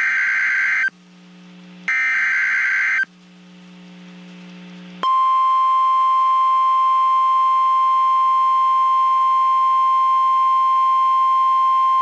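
NOAA Weather Radio emergency alert signal: the last two bursts of the EAS/SAME digital header, each a harsh one-second squawk about a second apart. About two seconds later the steady 1050 Hz warning alarm tone starts and holds, announcing that a severe thunderstorm warning is about to be broadcast.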